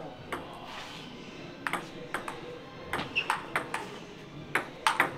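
Table tennis ball ticking back and forth in a rally, striking the paddles and the tabletop in quick sharp clicks, a fraction of a second apart, with a pause of about a second near the start.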